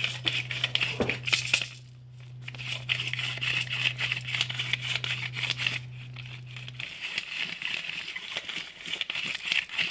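Hand pepper mill being twisted, grinding peppercorns in a rapid dry crackle, with a brief pause about two seconds in.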